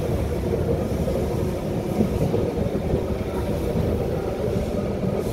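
Vintage electric tram running along its track, heard from inside the wooden saloon: a steady low rumble, with a couple of light knocks about two and three and a half seconds in.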